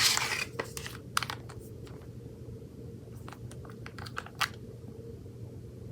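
A crinkling rustle at the start that fades within half a second, then scattered sharp clicks and crackles, as of something being handled close to the microphone.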